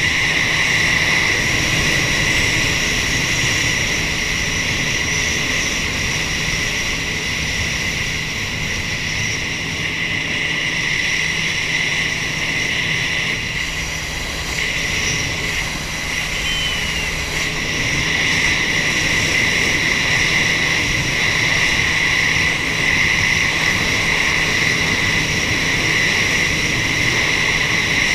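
Jet ski running steadily at speed, a constant high whine over a low rushing noise.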